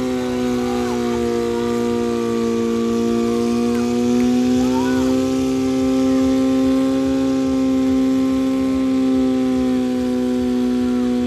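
Demolition derby car's engine held at high revs, a steady high-pitched drone that drifts slightly up and down in pitch.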